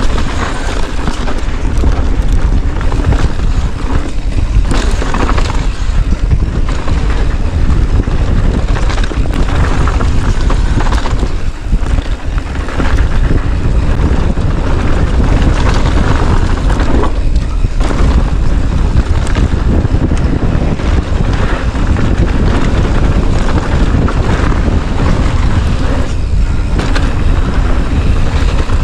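Wind buffeting an action camera's microphone: a loud, steady rumble with no words or music.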